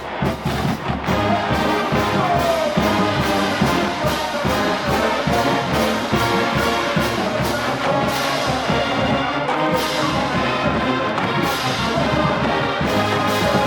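Marching band playing, brass section carrying the melody over a drumline beating a steady pulse.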